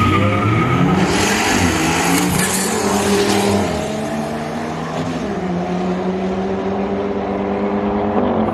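Street drag-racing cars accelerating hard, their engines revving up through the gears under a rush of noise that swells over the first few seconds and then eases as the cars pull away. Other engines keep running steadily.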